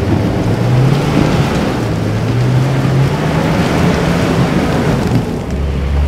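Stock Nissan Patrol ute's engine running hard under load on a steep rocky climb, held at steady high revs, under a dense rush of spinning tyres and loose dirt and gravel.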